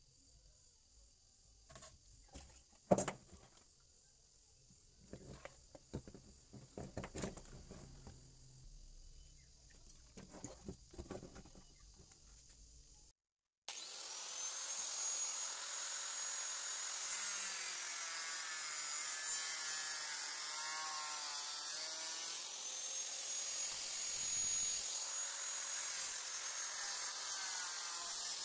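Scattered clicks and knocks of a TV circuit board being handled on a workbench. After a break about 13 seconds in, an angle grinder runs steadily against a printed circuit board, its whine wavering.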